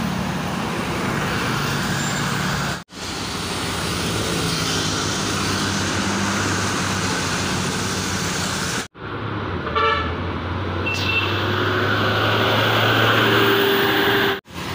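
Large coach buses driving past, engines running under steady road and traffic noise, in several short clips cut together. A brief vehicle horn toot sounds about two-thirds of the way in.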